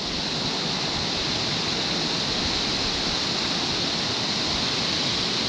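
Steady rushing of a spillway outflow, water tumbling over rocks into the river.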